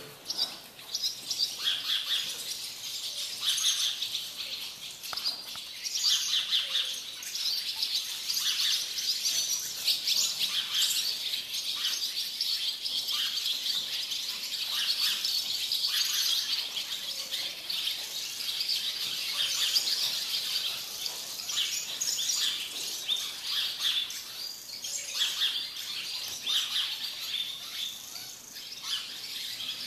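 Birds chirping continuously, many short high calls overlapping in a busy chatter.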